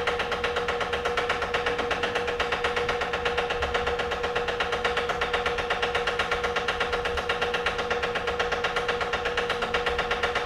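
Vacuum pump of a neon tube-processing manifold running steadily: a fast, even pulsing with a steady hum.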